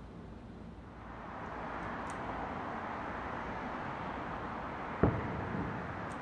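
One loud bang of an aerial fireworks shell bursting about five seconds in, trailing off in a rumbling echo, over a steady rushing noise that builds from about a second in.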